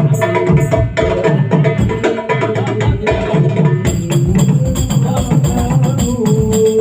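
Hadroh ensemble of hand-struck frame drums playing a quick, even rhythm. About four seconds in, tambourine jingles join, and near the end a long held note comes in over the drums.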